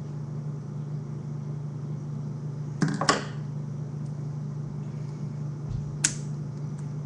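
K'NEX plastic pieces being handled and fitted together: a short clatter of clicks about three seconds in and a single sharp click about six seconds in, over a steady low hum.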